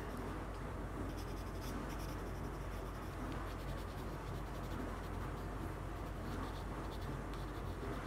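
Colored pencil scratching across textured watercolor paper in many short, repeated strokes as rock texture is shaded in.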